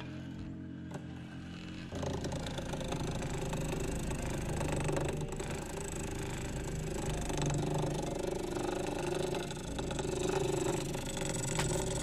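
Lathe spinning a cast epoxy resin blank while a turning gouge cuts it, a steady rough cutting noise over the lathe's motor. It grows louder about two seconds in as the cut gets heavier.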